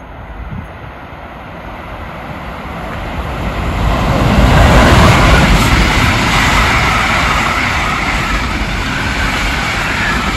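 Intermodal container freight train, hauled by an Rc4 electric locomotive, approaching and passing over a level crossing. It grows louder to its loudest about four to five seconds in, then the container wagons keep rolling past on the rails at a steady level.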